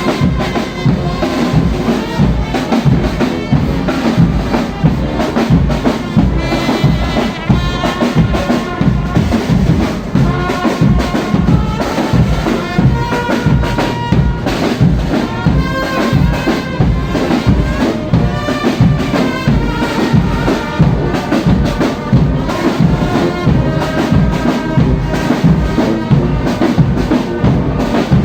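A church brass band playing a tune, brass melody over steady, busy drumming.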